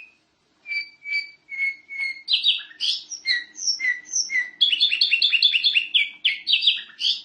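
Canary singing a long varied song: a run of separate clear whistled notes, then a fast rapid trill of about five notes a second near the end.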